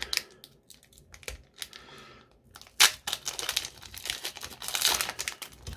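Foil Pokémon trading-card booster pack being torn open by hand, its wrapper crinkling and tearing; the pack is tough to tear. Faint crinkles at first, a loud crack nearly three seconds in, then steady crinkling.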